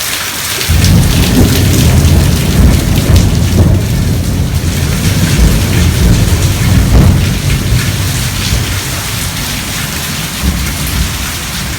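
Heavy rain pouring steadily, with a long rumble of thunder that starts about a second in, stays strong for several seconds and then eases off.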